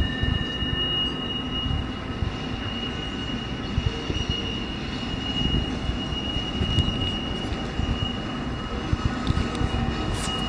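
Intermodal freight train rounding a tight curve: a steady high-pitched wheel squeal over the low rumble of the train.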